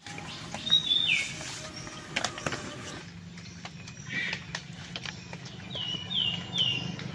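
Birds calling with short falling chirps, one about a second in and three in quick succession near the end, over the crackle and knocks of a wood fire burning in an open clay stove.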